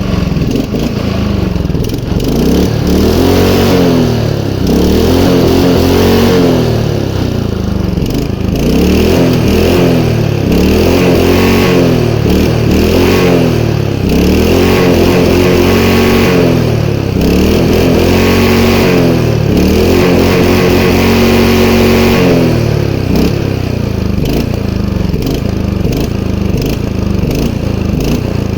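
Einhell Royal 46S lawn mower's petrol engine running, its speed repeatedly rising and falling about every two seconds, then steadier near the end.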